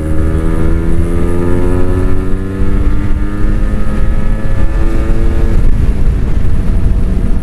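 Kawasaki Ninja RR 150's two-stroke engine accelerating under load, its pitch rising slowly for about five and a half seconds before the throttle is let off, leaving wind and road rumble.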